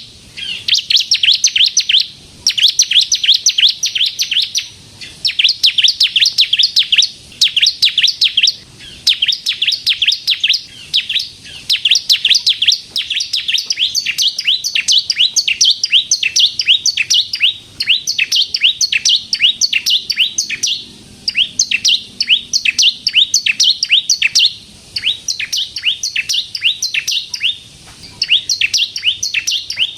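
Bar-winged prinia (ciblek) singing vigorously: rapid runs of sharp, high notes, many per second, in phrases of a few seconds separated by brief pauses.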